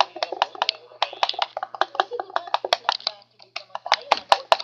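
Rapid, irregular clicking and tapping of a utensil stirring glue and colouring in a plastic bowl, about six clicks a second.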